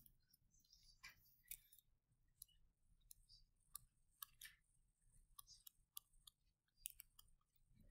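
Faint, irregular clicks and taps of a stylus writing on a touchscreen, against near silence.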